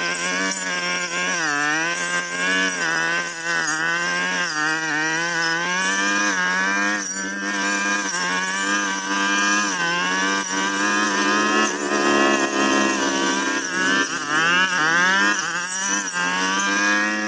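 Petrol brush cutter engine running at high speed, its pitch dropping briefly again and again as the blade bogs into thick brush and then picking back up.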